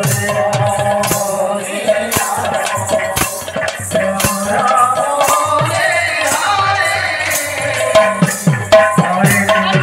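Odia kirtan music: several khol barrel drums played in fast, dense strokes, their deep bass notes sliding down in pitch after each stroke, over bright jingling metal percussion and held melody notes.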